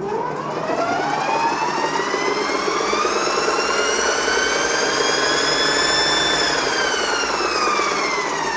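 Ovaobike MCR-M electric motor and belt drive spinning the raised rear wheel, its whine rising in pitch for about five seconds, holding briefly, then falling as it slows. The owner suspects a damaged or dry bearing, either on the swingarm shaft that carries the large belt pulley or in the electric motor.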